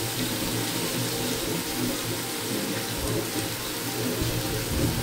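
Sliced onions and ginger sizzling steadily in hot coconut oil in a pan.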